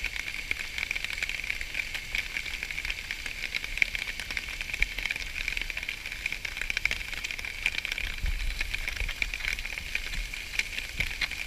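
Peppers, onion and strips of meat sizzling in a frying pan on a small camping gas stove: a steady crackle full of small ticks, with a brief low rumble about eight seconds in.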